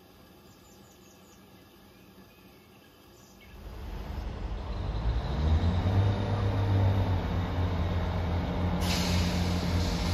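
Underfloor diesel engines of a Class 159 diesel multiple unit running, a low steady drone that swells in about three and a half seconds in and holds. About nine seconds in, a sudden sharp air hiss from the train's brake system joins it.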